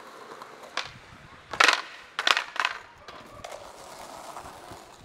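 Skateboard wheels rolling on concrete, then a sharp pop and a series of loud impacts about a second and a half in: the board clattering and the skater slamming onto the ground in a bail. A scraping slide follows as the board comes to rest.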